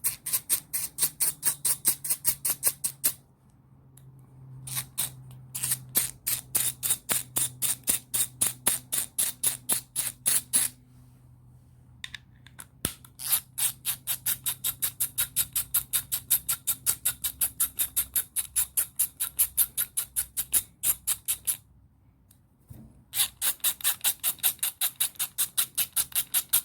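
Milwaukee 3/8-inch drive 90-tooth ratchet clicking fast and evenly as its handle is swung back and forth, its pawl ticking over the gear teeth, in long runs with three short pauses. The freshly cleaned and relubed gear and pawl are turning freely without binding.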